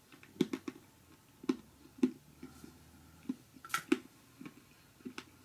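A person chewing a mouthful of very hard 70% dark chocolate with pieces of dried fruit in it: a dozen or so sharp crunching clicks at irregular intervals.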